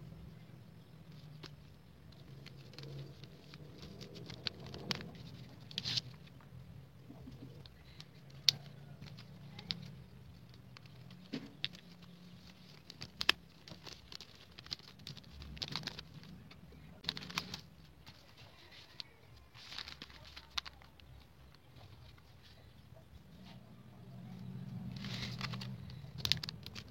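Scattered light clicks, taps and rustles of hands handling small items and packaging, with a few sharper knocks, over a low steady hum.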